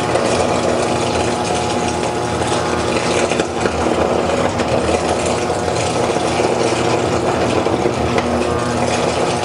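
Portable DC metal disintegrator spark-eroding the cap of an aluminum rivet, its electrode arcing on the metal under the servo-fed head. A steady, loud buzzing hum with a rough, noisy edge.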